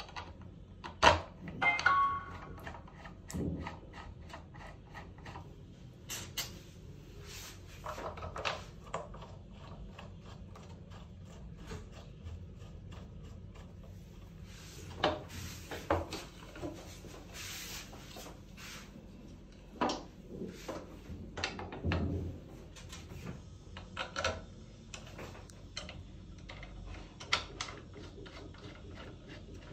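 Scattered clicks, knocks and rubbing of parts being handled and fitted together while a dissolution tester's basket and paddle stand is assembled. The loudest knock comes about a second in, followed by a clatter with a brief metallic ring.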